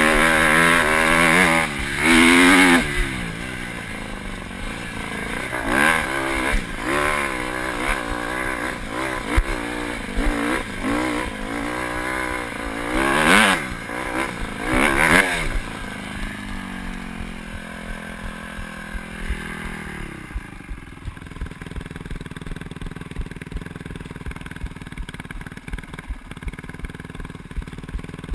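Dirt bike engine revving up and down repeatedly as it is ridden along a trail, its pitch rising and falling with each burst of throttle. About 16 seconds in it settles to a steadier, lower note as the bike slows, and from about 20 seconds it is much quieter.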